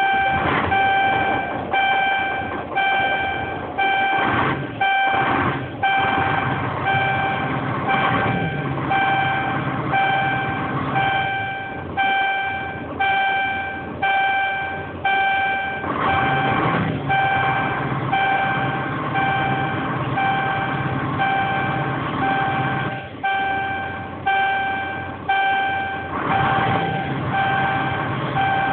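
Scania R470 truck's in-cab warning beeper sounding a steady on-off beep, about once a second, over the straight-six diesel idling just after a start, while the truck is made ready to drive.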